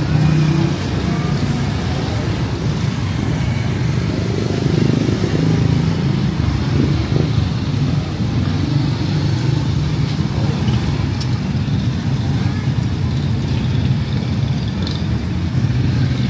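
Street traffic: car and motorcycle engines running nearby, a steady low hum with a haze of road noise.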